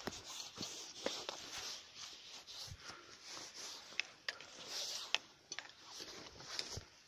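Footsteps pushing through dry bunch grass: an uneven rustling and brushing, broken by scattered sharp ticks and crackles of stems.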